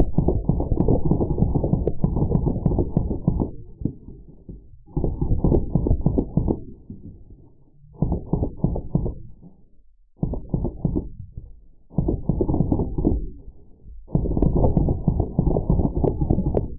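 Full-auto Drozd Blackbird air guns firing bursts, with the sound slowed down so the rapid shots run together into deep, low rattles. There are about six bursts, each one to three seconds long, separated by short gaps.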